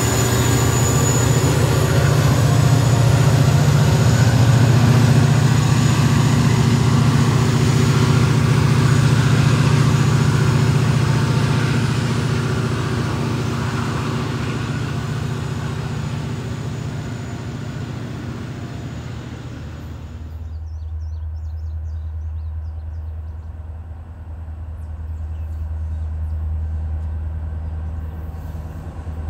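Diesel freight locomotives of a CSX train passing, their engines a loud, steady drone that slowly fades as they move off. About two-thirds of the way in it changes suddenly to a second diesel freight train, Norfolk Southern locomotives approaching, heard as a quieter, lower drone.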